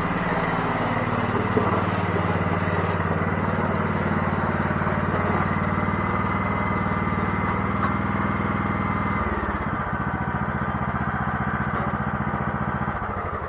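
Kohler Courage 17 mower engine running steadily; its note shifts about nine seconds in and it fades away near the end.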